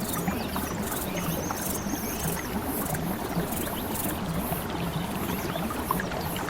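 Nature ambience: a steady wash of water with many small chirps and calls from animals, including a rapid high trill.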